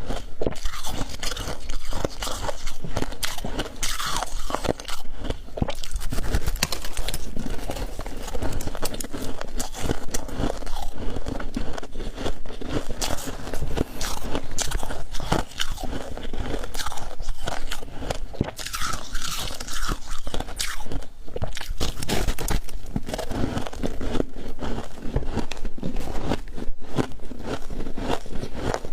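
Freezer frost being bitten and chewed close to the microphone: a steady run of dense, crisp crunches.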